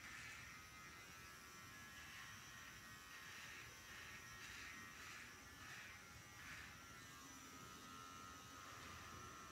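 Cordless electric hair clippers buzzing faintly as they are run over the nape, the buzz swelling in short strokes about twice a second through the middle of the stretch.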